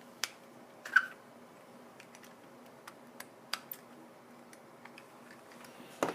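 Scattered small plastic clicks and taps from handling a dash cam and its mount. The loudest click comes about a second in and another near the end, with lighter ticks between them.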